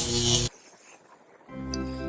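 Background music that cuts off abruptly about half a second in, a second of faint hiss, then different, softer music with held chords begins near the end.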